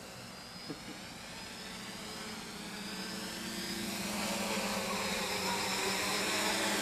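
Small quadcopter's electric motors and propellers whirring in a steady, pitched drone. It grows louder from about halfway through, with the pitch shifting.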